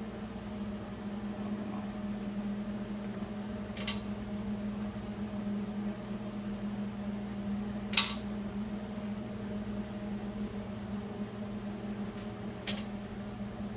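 Allen bolts being unscrewed from a Dana 30 locking hub with a hex key, giving three sharp metal clicks, the loudest about eight seconds in, over a steady low machine hum.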